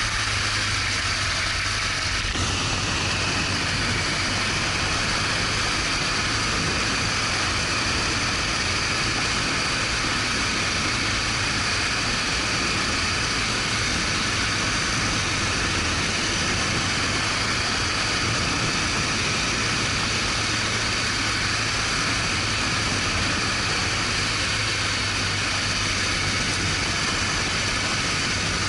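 BMW R1200GS Adventure's flat-twin engine running steadily, mixed with a continuous rush of wind and road noise.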